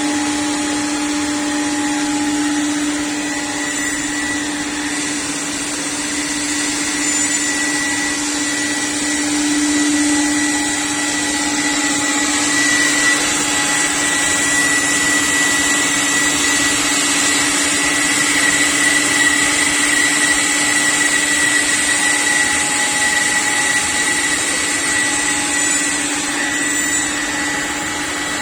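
CNC panel-cutting machine running steadily, a constant whine over a rushing, vacuum-like noise.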